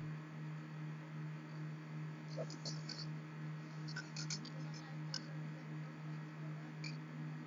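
A steady low hum, with a few faint clicks and scratches scattered through it, from about two seconds in.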